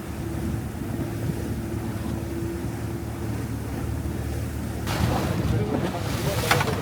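Wind buffeting the microphone with a low rumble and the sea's wash. About five seconds in, a louder, hissier rush of sound sets in.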